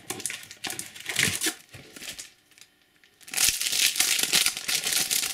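Wrapper of a Topps Match Attax trading-card booster pack crinkling as the pack is handled, then after a short lull, louder sustained crinkling and tearing as the pack is ripped open, from about three and a half seconds in.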